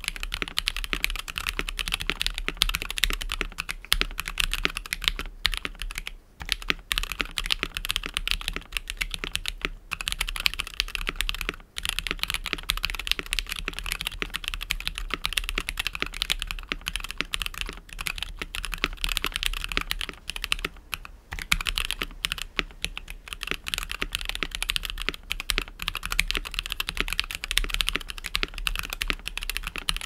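Fast, continuous typing on a KBD67Lite R2 gasket-mount mechanical keyboard with C³EQUALZ Tangerine linear switches and a polycarbonate plate: a dense, unbroken stream of keystroke clacks. The typing pauses briefly about six, twelve and twenty-one seconds in.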